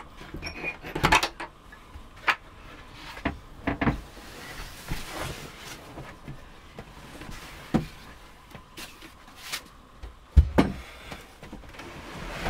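Wooden knocks and clicks as a pull-out van bed base is slid out, with the mattress and bedding rustling as they are dragged across it. The loudest is a single heavy thump about ten seconds in.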